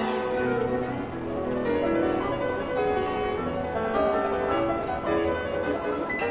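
Instrumental music with piano, in a classical style, moving through a run of held notes.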